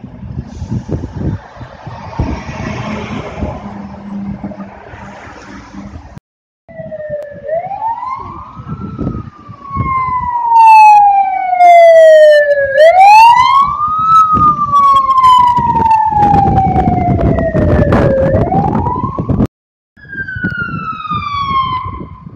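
Fire service vehicle siren sounding a slow wail, each cycle rising quickly and then falling slowly over about four seconds, very loud as it passes, with the vehicles' engines running underneath. Before that comes a few seconds of engine and road noise without the siren, and a short falling siren tone near the end.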